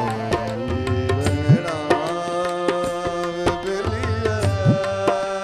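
Tabla playing a busy rhythm, its bass drum swooping up in pitch twice, about a second and a half in and again near the end, under a sustained melodic line in Punjabi/Saraiki folk music.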